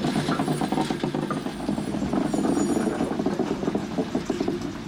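Railcar moving slowly during shunting: a steady mechanical rumble with a fast rattle, growing a little deeper about a second and a half in.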